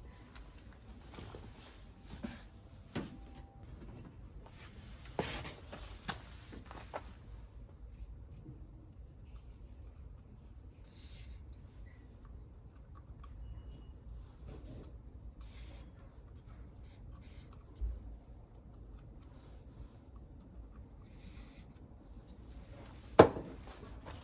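Hand tools and small metal engine parts being handled during disassembly of a scooter engine: intermittent rubbing and scraping with light clicks, and one sharp metallic clack near the end.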